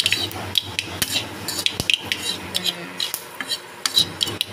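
Spatula scraping and knocking against a kadhai while panch phoron seeds crackle and pop in hot oil, a scatter of sharp clicks over a low steady hum.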